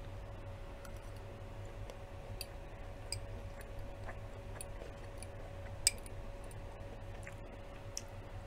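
Faint scattered clicks and taps of a metal spoon against a small glass bowl as rice is scooped up and eaten, with one sharper click about six seconds in, over a steady low hum.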